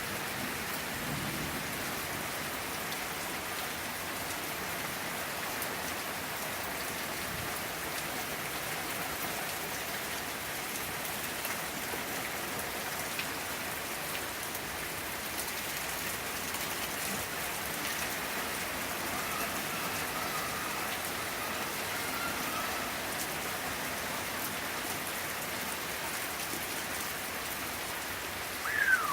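Steady heavy thunderstorm rain, an even hiss of drops falling on surfaces. Just before the end a louder sound breaks in over it.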